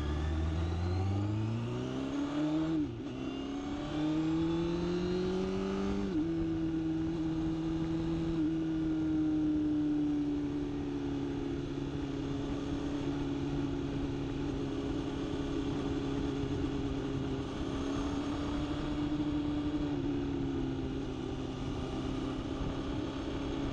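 Vehicle engine accelerating, its pitch rising and then dropping at gear changes about three and six seconds in. After that it runs at a fairly steady speed, with a slight drop in pitch near the end.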